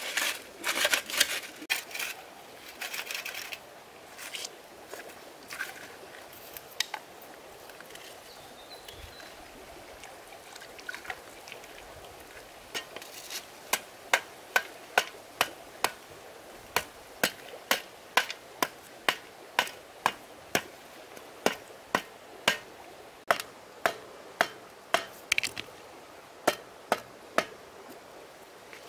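Repeated sharp knocks, about two a second through the second half, after some irregular rustling and splashing.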